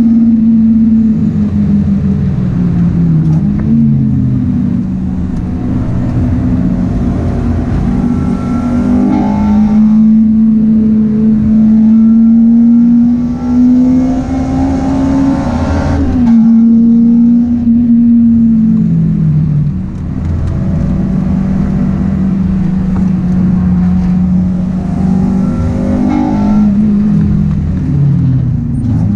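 Honda Integra DC5 Type R's four-cylinder VTEC engine heard from inside the cabin, held high in the rev range while driven hard on track. The revs pull up steadily and fall away sharply three times: a few seconds in, a little past halfway, and near the end.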